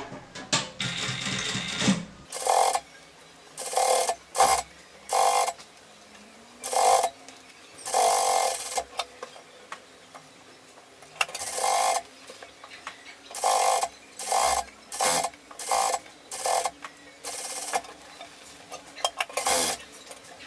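Industrial straight-stitch sewing machine running in many short bursts, stopping and starting every second or so, as a topstitch is sewn along the edge of a suede-knit coat.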